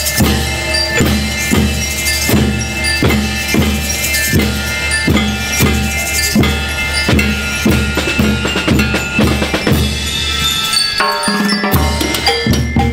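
School rhythm band playing live: drum kit and bass drum beat about two strokes a second, under sustained notes from the brass section. Near the end the low drums drop out for about a second, then come back in.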